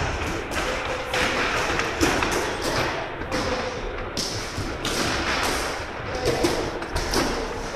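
Kicks and punches landing on padded kicking shields held by partners: many irregular, overlapping thuds and slaps from several pairs striking at once.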